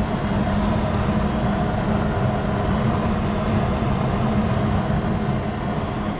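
Gas furnace running in heat mode: a steady hum from its blower and draft-inducer motors, with a rush of moving air.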